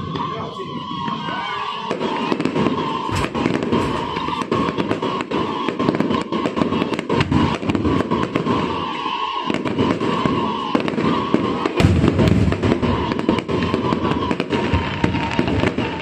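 Aerial fireworks going off in a rapid, continuous run of bangs and crackles, with music playing underneath.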